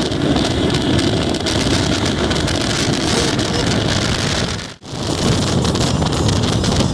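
Cars at high speed on a highway: engine and road noise buried under heavy wind rush on the microphone. The sound breaks off briefly about five seconds in, then the same rushing noise resumes.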